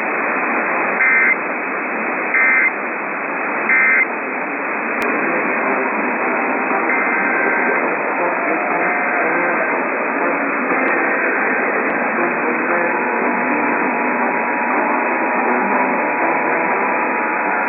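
Three short EAS end-of-message data bursts, the digital squawks that close the alert, over a hissy, band-limited radio signal in the first four seconds. They are followed by steady radio static with faint program audio underneath.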